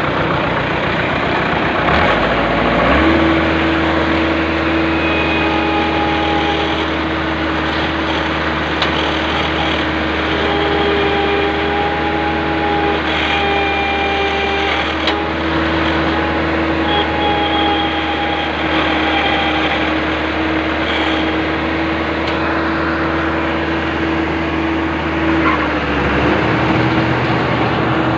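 Rice combine harvester running continuously: a loud, dense mechanical noise with a steady engine hum. The hum settles into a steady pitch about three seconds in and shifts slightly near the end.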